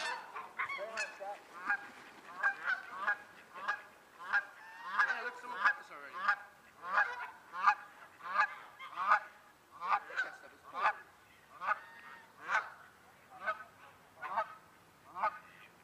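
A flock of geese, Canada geese among them, honking over and over in a steady series of about one to two honks a second.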